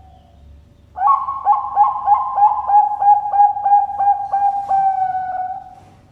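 Zebra dove (Bangkok-bred perkutut) singing its cooing song: a quick run of about a dozen short coos starting about a second in, ending in one longer held note near the end.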